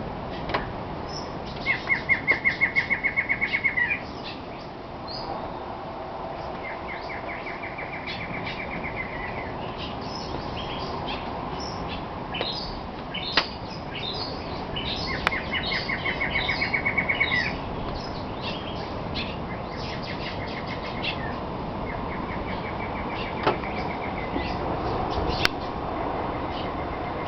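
Rainforest birds calling in the early morning: a rapid trill of about seven even notes a second, each run lasting about two seconds, repeats five or six times, the first and third loudest, over many short high chirps and a steady hiss.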